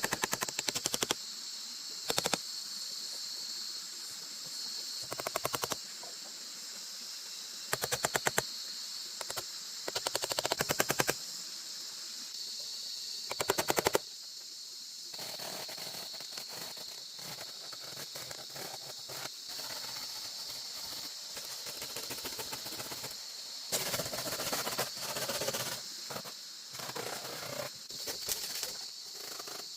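Several short bursts of rapid rasping strokes from hand-tool work on wood, heard over a steady high insect drone; the bursts come mostly in the first half, with quieter scraping and handling after.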